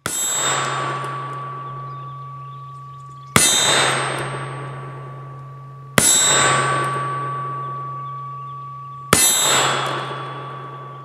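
Four shots from a .44 black-powder cap-and-ball revolver, each a sharp report followed by a long, ringing, echoing decay.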